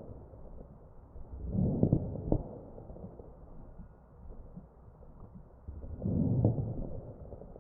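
Chest breath sounds of a patient on a mechanical ventilator, heard through a stethoscope: two breaths about four and a half seconds apart, each a swell of airflow noise with short sharp clicks of crackles in it.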